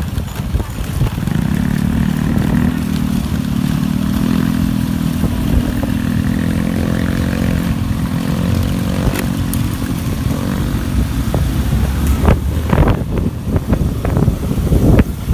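Motorcycle engine running steadily at an even pitch with slight rises and falls. Near the end it gives way to an irregular, rough rumble.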